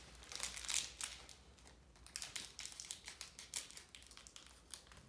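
Plastic toy wrapping crinkling and rustling as a small packet is unwrapped by hand, in irregular crackles that are busiest in the first second and then quieter.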